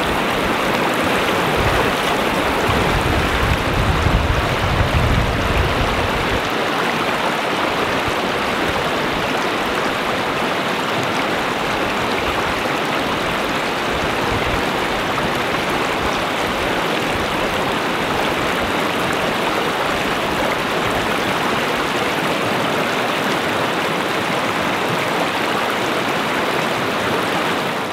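Shallow river water rushing steadily over a gravel riffle, a continuous even rush. A low rumble sits under it for the first several seconds.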